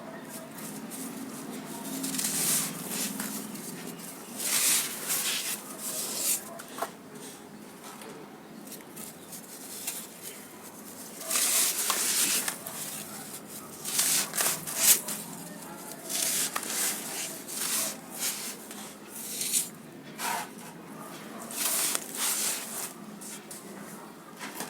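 Packed sand crumbling and crunching in water, in irregular gritty bursts every second or few seconds with short pauses between.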